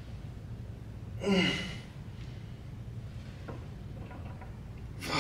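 A man straining through a set on a leg extension machine: a loud forced exhale about a second in, his voice sliding down in pitch, then another sharp breath near the end. A low steady hum runs underneath.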